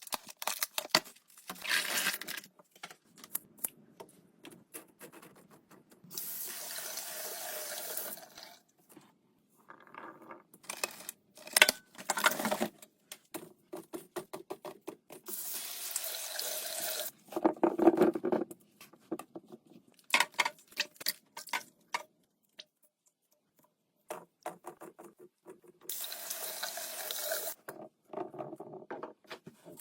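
Kitchen sink tap running in three spells of about two seconds each while fruit is rinsed under it. Between the spells come many short clicks and clatters as produce and containers are handled.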